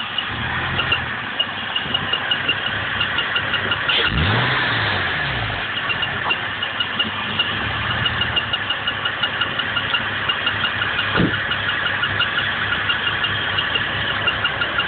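Porsche 911 (996) water-cooled flat-six idling soon after start-up, with a fast, rhythmic, high-pitched squeak chirping from the engine several times a second. The engine is revved briefly about four seconds in.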